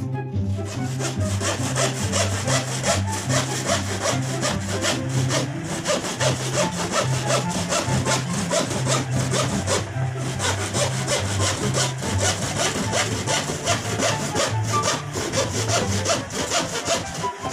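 Hand saw cutting through a sheet of plywood in steady, even back-and-forth strokes.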